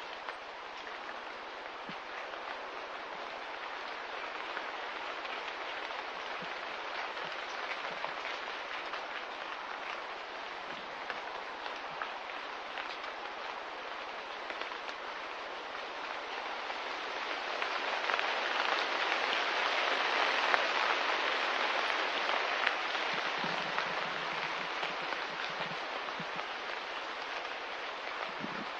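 Steady light rain pattering, growing louder about two-thirds of the way through and then easing again.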